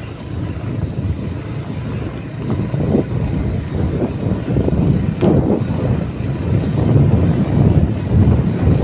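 Wind buffeting the microphone of a camera moving at speed along a dirt road, a loud low rush that swells and dips, with brief knocks about three and five seconds in.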